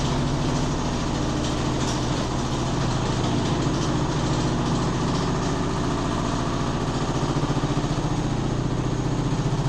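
Midea HealthGuard washing machine in its spin cycle: motor and drum running with a loud steady hum. A pulsing beat grows stronger over the last few seconds as the drum speeds up.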